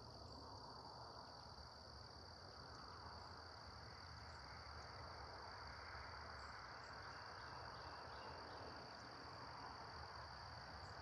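Faint, steady insect chorus, like crickets trilling, over a soft background hiss.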